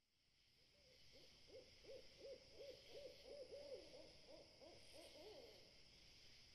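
Faint night ambience: an owl hooting in a quick run of about a dozen short notes that stops about a second before the end, over a steady high insect chirring.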